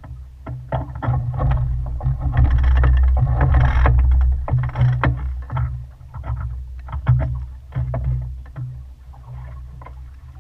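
Wind buffeting the microphone on a sailboat under way, a heavy uneven rumble that swells loudest a few seconds in. Irregular sharp flaps and knocks run through it.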